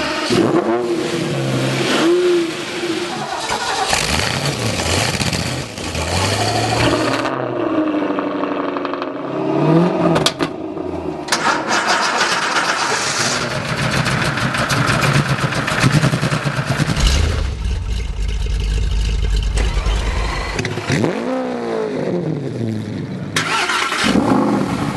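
An engine running and being revved several times, its pitch rising and falling, with a steadier low drone for a few seconds past the middle.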